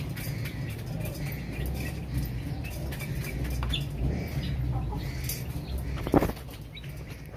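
Aseel chicks and hen pecking grain from a metal dish: scattered small clicks, with faint chicken calls, over a steady low rumble. One sharp thump about six seconds in.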